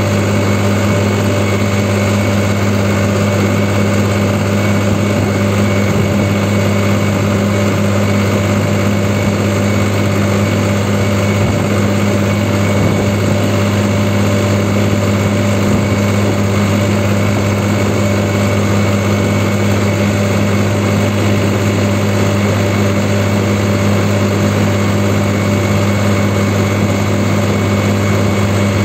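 New Holland 3630 Super Plus tractor's diesel engine running steadily at a fixed hand-throttle setting as the tractor drives along the road, heard close up from the driver's seat. It is a constant low drone with no change in pitch or loudness.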